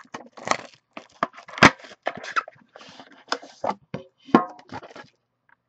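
Handling noise from a UD Premier hockey card tin and its cardboard box: irregular clicks, scrapes and knocks against the table. The sharpest knock comes about a second and a half in, and another comes a little past four seconds.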